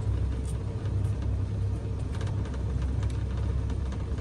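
Steady low rumble of a moving open-sided passenger cart carrying riders along a garden path.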